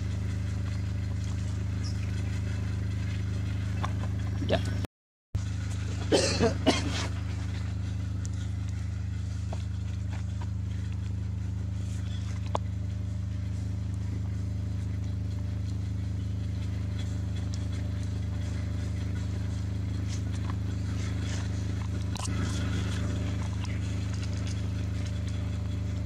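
A steady low mechanical hum runs throughout, with a few brief sharper sounds over it. The sound cuts out completely for a split second about five seconds in.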